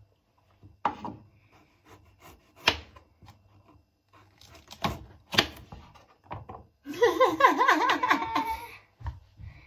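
Small kitchen knife cutting carrot on a cutting board: a handful of sharp knocks of the blade on the board. Near the end, loud laughter takes over for about two seconds.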